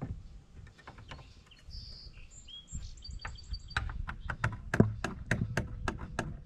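Small birds chirp, then a steel ratcheting bed-support bracket clicks quickly and evenly, about four clicks a second, as it is worked through its notches.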